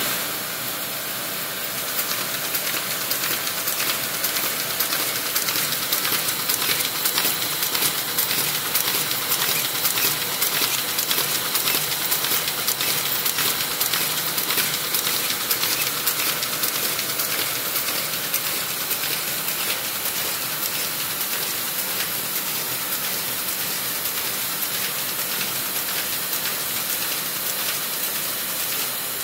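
MBO paper-folding machine with a reconditioned Z2 knife-folding unit running, with sheets passing through its belts and rollers. It gives a steady mechanical rush with a dense run of fine, rapid clicks, a little quieter in the last third.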